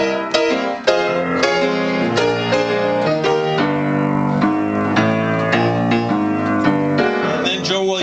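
Solo piano playing a jazz blues, with many notes and chords struck in quick succession.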